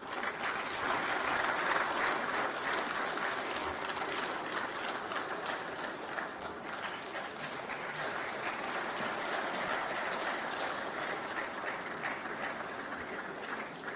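Audience applauding: a steady patter of many hands clapping that builds over the first second or two, holds and tails off near the end.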